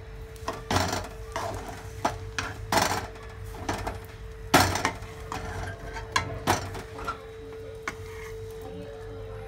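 Spatula scraping and knocking against a kadhai as roasted peanuts are stirred into melted jaggery, in irregular strokes, the loudest a little before halfway through.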